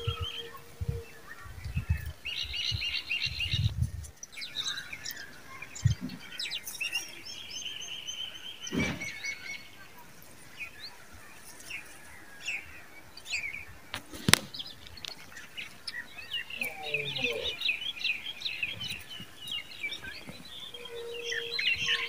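Small songbirds chirping and twittering, many short calls overlapping, with a few low thumps in the first few seconds and one sharp click about 14 seconds in.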